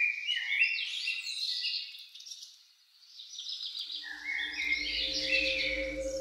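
Birds chirping and singing in quick overlapping phrases, with a short lull about halfway through. Soft low music comes in underneath about four seconds in.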